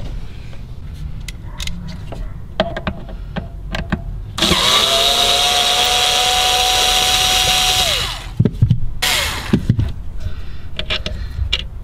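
A handheld power driver runs steadily for about three and a half seconds, starting about four seconds in, with a steady motor whine, backing out the mounting screws of a JL Audio 12-inch subwoofer. Light knocks and clicks from handling the speaker and enclosure come before and after.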